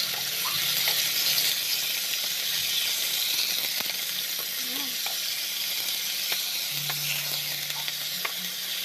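Sliced chicken breast sizzling in hot oil in a nonstick frying pan, stirred with a wooden spatula that now and then clicks and scrapes against the pan.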